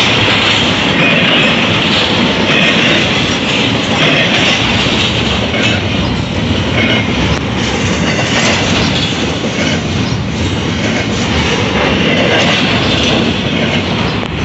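Double-stack container train's well cars rolling past at trackside: a loud, steady run of steel wheels on the rails.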